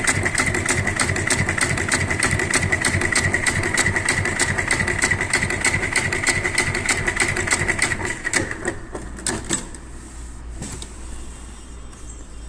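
GOA-204-292Z heavy-material pattern sewing machine stitching at a steady fast rate, about five or six stitches a second over a steady whine. Near the end it slows to a few last stitches and stops, leaving a low hum.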